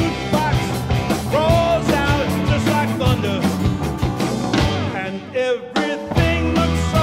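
Rock band playing live: electric and acoustic guitars, bass guitar, drum kit and keyboard, with a lead line bending in pitch over the top. About five seconds in the band drops out for half a second, then comes back in together.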